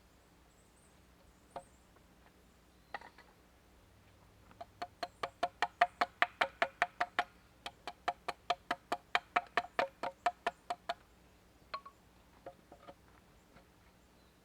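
A quick, even run of about thirty knocks on wood, four to five a second, each with a short ringing tone, with a few single knocks before and after.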